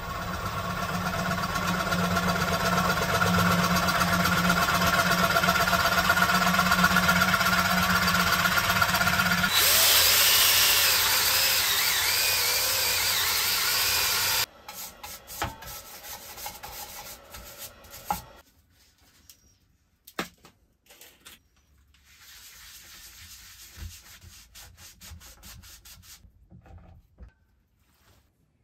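Wood lathe spinning an ash platter while a scraper cuts its bare centre: a steady motor hum under a rough scraping noise. About ten seconds in it changes to the brighter, hissing noise of a drill-driven sanding disc on the spinning wood, which stops abruptly midway; after that there are only faint clicks and handling noises.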